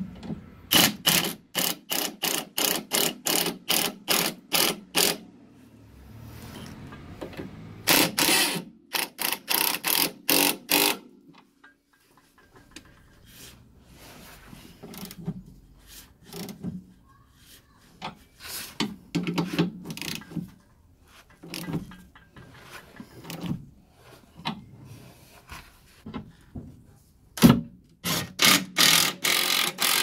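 Cordless impact wrench tightening the nuts of a new rear anti-roll-bar drop link, run in quick bursts of about four a second. There are several runs of bursts: one near the start, one around eight to eleven seconds in, weaker ones in the middle and another near the end.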